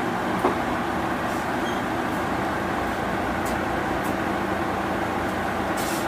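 Mitsubishi Fuso Aero Star (2PG-MP38FK) city bus's diesel engine and drivetrain running at a steady note, heard from inside the passenger cabin, with a single small knock about half a second in.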